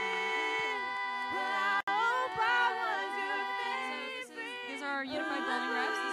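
A small group of female voices singing a cappella, holding and sliding between notes in harmony, with a brief dropout in the sound about two seconds in.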